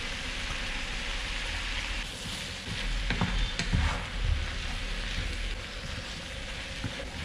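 Tofu and chopped vegetables sizzling in a frying pan, a steady hiss. From about two seconds in, a spatula stirs the mix, scraping and knocking against the pan for a couple of seconds.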